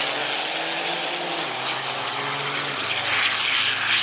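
Two diesel drag trucks at full throttle down the strip, one of them a 12-valve Cummins-swapped Dodge Ramcharger, with a loud engine note and a broad hiss over it. The engine note steps down in pitch twice, about a second and a half in and again near three seconds.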